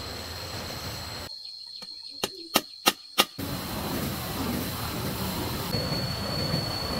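Steady high-pitched insect drone over background hiss, broken by four sharp knocks in quick succession about two to three seconds in.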